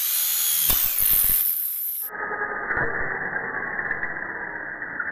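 A small electric power tool running: its motor whine rises in pitch as it speeds up, over a hissing cutting noise. About two seconds in, the sound changes abruptly to a duller, muffled grinding noise that continues to the end.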